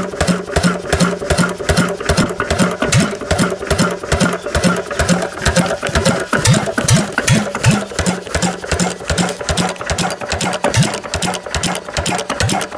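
McDonald Super Diesel crude-oil stationary engine, a single-cylinder semi-diesel, running steadily with an even, rapid rhythmic beat.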